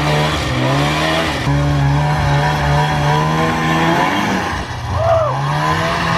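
Polaris Indy Lite 340's small two-stroke snowmobile engine revving up and down through deep snow, the throttle backing off briefly about a second and a half in and again past four seconds. It is running on a freshly fitted fuel filter and fuel pump.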